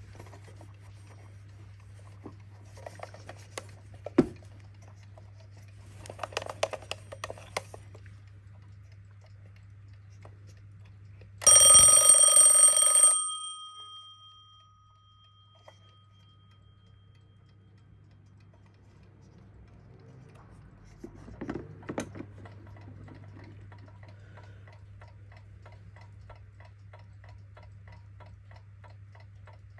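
Twin-bell mechanical alarm clock (Kienzle): a few handling clicks, then the alarm rings loudly for about a second and a half, the hammer rattling fast between the two bells, whose tones ring on and fade. After a couple of knocks the clock ticks steadily, about five ticks a second.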